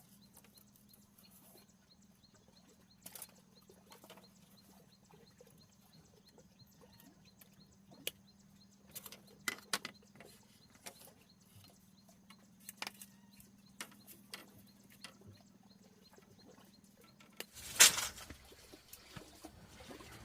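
Scattered light knocks and clicks over a faint steady hum, with one louder knock near the end.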